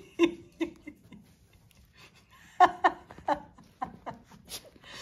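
A woman laughing softly in short chuckles: a few at the start, then a louder run of about four some two and a half seconds in.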